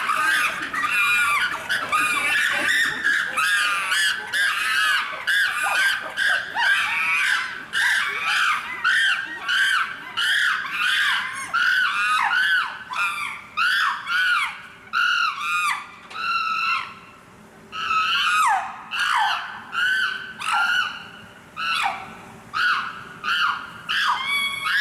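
Chimpanzees screaming: a long run of loud, arching shrieks, several voices overlapping at first, then mostly single shrieks in quick succession, with a brief pause about two-thirds of the way through.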